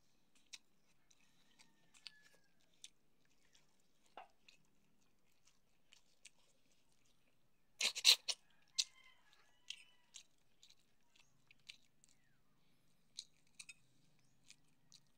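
Close-up mouth sounds of eating soft fish and moringa leaves by hand: scattered wet lip smacks and chewing clicks, loudest in a quick cluster of smacks about eight seconds in.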